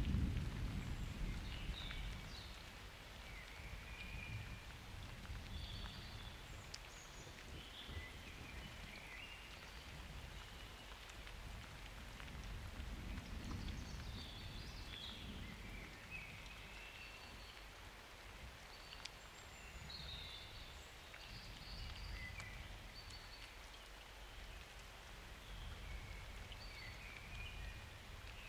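Steady summer rain falling, with distant thunder rumbling at the start and dying away over a couple of seconds, then fainter low rumbles later. Birds chirp briefly and often over the rain.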